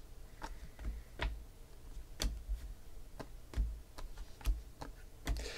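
Trading cards being flipped through by hand, each card slid off the stack with a light click, about ten irregular clicks in all.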